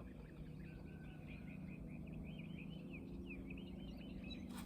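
Faint birdsong outdoors: many quick chirping notes repeating throughout, over a low steady hum. Two sharp clicks near the end.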